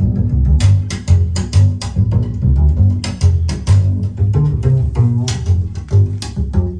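Recorded music played back over a hi-fi system of DAC, preamplifier and power amplifier through loudspeakers: a deep, prominent bass line with sharp percussive hits recurring a few times a second.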